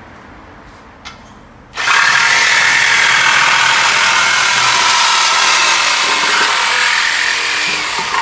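Cordless DeWalt reciprocating saw cutting through a metal exhaust pipe to take out the muffler for a muffler delete. It is loud and steady, starting about two seconds in and running for about six seconds, with a short click just before.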